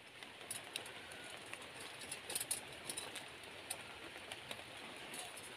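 Faint outdoor ambience: a steady high hiss with scattered light ticks and taps, a small cluster of them a little past halfway.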